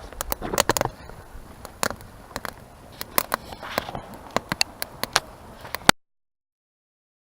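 Open wood fire crackling, with irregular sharp pops and snaps and a few brief rushing swells; the sound cuts off abruptly about six seconds in.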